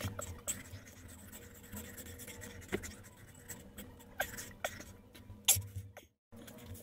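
Soft scuffs, rustles and irregular small knocks from a person doing push-ups on a floor, over a faint steady hum. The sound drops out for a moment near the end.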